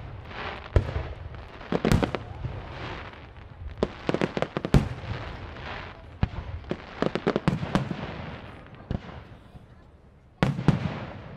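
Aerial firework shells bursting in the sky: a series of sharp bangs with echoing tails, some single and some in quick clusters, the loudest about two seconds in, around five seconds in, and a fresh burst near the end.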